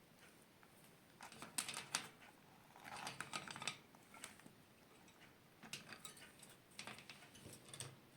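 Parrot biting and crunching guava with its beak: faint spells of crisp clicks and crunches, four short bouts with pauses between.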